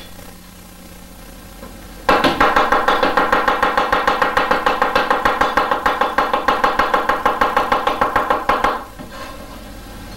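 Chinese cleaver rapidly chopping garlic on a wooden cutting board to mince it, an even run of about six chops a second. The chopping starts about two seconds in and stops near the end.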